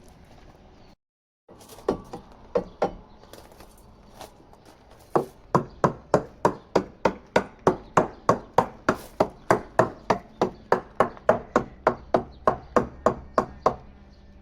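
A marine surveyor's hammer tapping along a fiberglass sailboat hull, sounding it for delamination, where a dull thud would mean the fiberglass is separating. A few scattered taps come first, then a steady run of sharp knocks at about three a second for some eight seconds.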